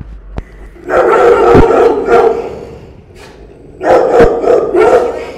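Rottweilers barking loudly, close up, in two bouts: one starting about a second in and another near four seconds.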